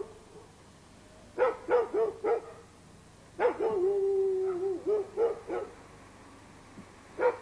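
A dog barking: a quick run of four short yelps, then one drawn-out note held for about a second, followed by a few more short barks and a single one near the end.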